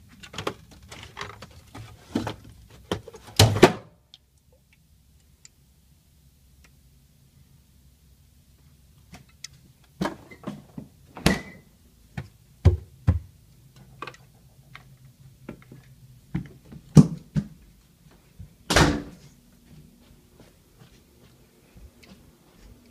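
Knocks, clunks and thuds of things being handled at an open refrigerator and a kitchen counter, with doors shutting, in two clusters separated by a quiet pause of several seconds; the loudest is a heavier thud near the end.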